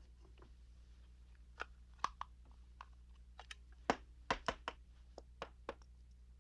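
Irregular sharp clicks, clacks and small knocks of a telephone being handled and worked on with small tools, about a dozen in all, the loudest in the middle. A faint steady hum lies beneath.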